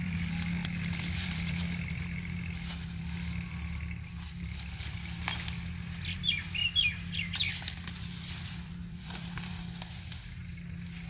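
Turnip plants rustling as their roots are pulled from the soil, with a few short crackles of leaves and stalks. Small birds chirp several times in the middle, over a steady low hum.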